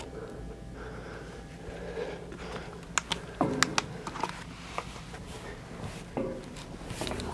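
A few scattered sharp clicks and light knocks, bunched about three seconds in, over a low steady hum: handling and movement noise as the camera is carried about.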